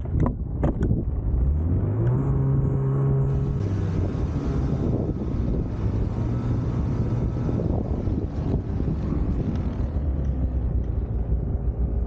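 Snowmobile engine revving up about a second in and holding a steady pitch, then settling to a lower note as it runs on.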